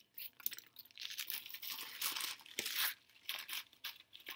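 A packaging bag crinkling and rustling as it is handled and shaken to get its contents out, with small sharp crackles; the rustle is busiest for about two seconds in the middle and comes in shorter bursts near the end.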